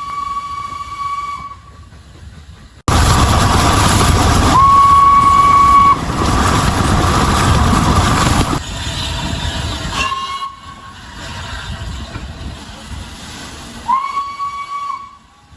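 Steam locomotive whistle sounding four short single-note blasts, each starting with a slight upward slide to a steady pitch. Across the middle, a loud rushing, hissing noise from the train sits under one of the blasts.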